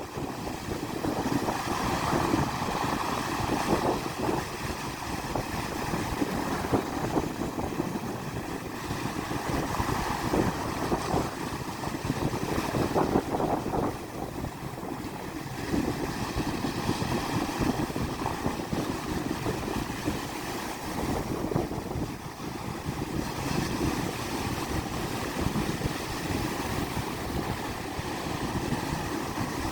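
Black Sea waves washing onto the shore, the surf swelling and easing every few seconds, with wind buffeting the microphone.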